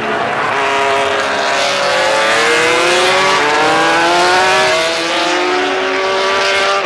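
Several MotoGP race motorcycles passing on a warm-up lap, their engines revving up and easing off with pitches rising and falling over one another.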